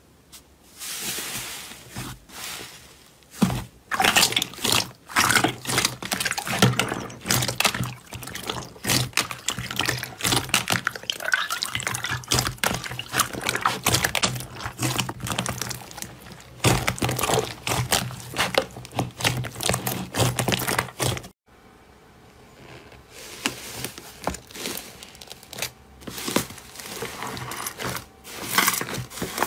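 Slime being handled close to the microphone: dense wet squelching, clicking and popping, with a low steady hum beneath. It drops off suddenly about two-thirds of the way through, then the wet clicking starts again, quieter at first, near the end.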